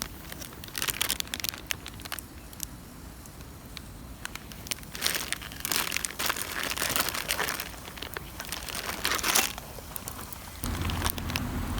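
Crinkling and crumpling of something being handled, in four or five short bouts.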